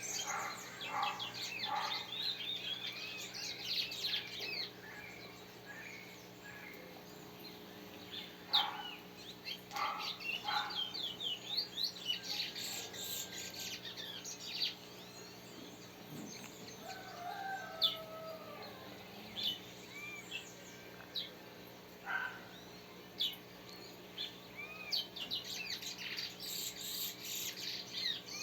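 Several birds chirping and singing, many short calls and whistled notes overlapping, with busier stretches at the start, in the middle and near the end.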